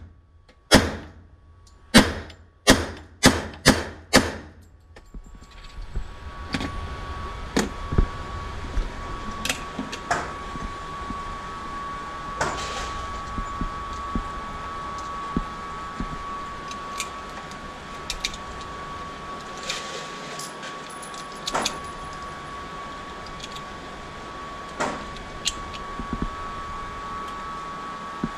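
A string of about six .45 ACP pistol shots from a Detonics Scoremaster 1911, fired in quick succession in the first few seconds on an indoor range. Then a steady hum with a faint high tone, and scattered small metallic clicks as cartridges are loaded into the pistol's magazine, with an occasional sharper crack.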